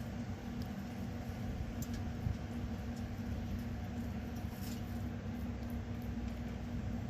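Steady low hum of a running pellet grill smoker's fan, with a few faint light taps over it.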